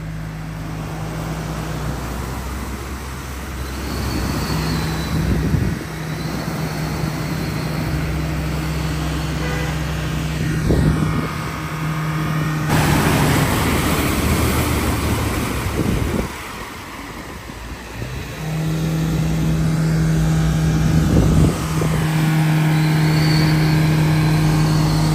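Motor vehicle engine running and revving under load, easing off and picking up again, with a few sharp knocks.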